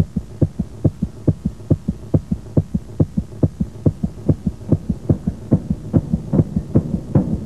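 Heartbeat sound effect: low thumps beating quickly and evenly, about four a second.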